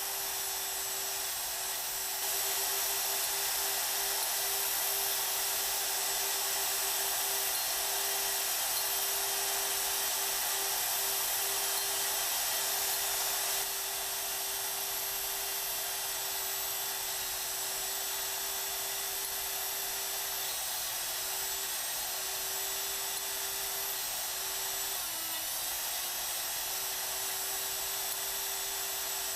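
Hougen 10950 cutter sharpening machine grinding the teeth of an annular cutter along the primary inclination angle: a steady motor whine with a dense grinding hiss, a little louder for the first dozen seconds.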